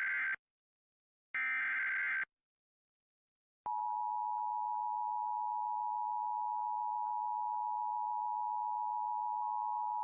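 Emergency Alert System SAME header data tones: the end of one burst and then a second burst of rapid screeching data, each about a second long. About three and a half seconds in, the EAS two-tone attention signal starts and holds as one steady, unbroken tone.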